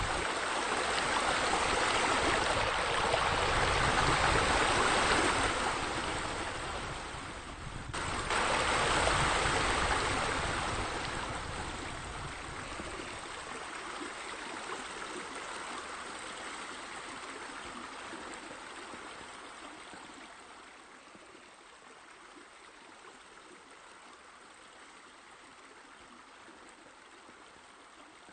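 Steady rush of running water, louder over the first ten seconds with a short break about eight seconds in, then fading to a faint trickle.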